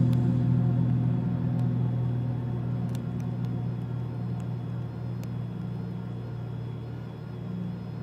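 Extra 330L aerobatic plane's six-cylinder Lycoming AEIO-580 piston engine and propeller at a steady drone, fading away as the plane climbs out after takeoff.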